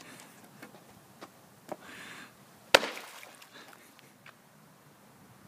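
A flat cowboy cutout slapping down onto the water of a swimming pool: one sharp smack about three seconds in, with a little splashing after it. A few small knocks and a short rustle come before the smack.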